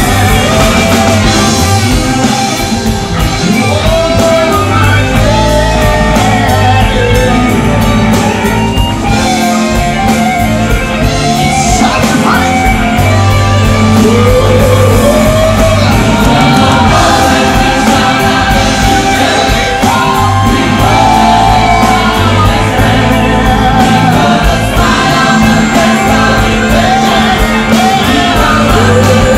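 Live band music: a lead singer and a backing choir singing over drums, bass and electric guitar.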